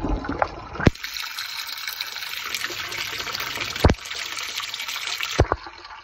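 Water running and splashing into a trout-fry rearing tank, a steady hiss, with three sharp knocks about one, four and five and a half seconds in.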